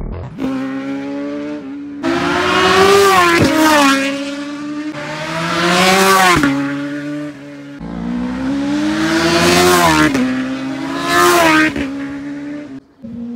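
Superbike racing motorcycles passing flat out one after another, each high-revving engine rising in pitch as it approaches and then dropping sharply as it goes by.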